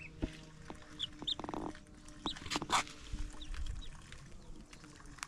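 Young chickens pecking and scratching at scattered grain, with a few short high peeps, a brief rasping squawk about a second and a half in, and a louder sudden noise just past the middle.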